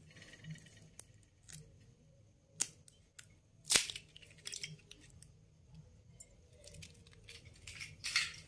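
A hen's eggshell being cracked by hand: a sharp crack a little under four seconds in, then brief crackling as the shell is pulled apart over the bowl, with a few lighter clicks of handling around it and a short scrape near the end.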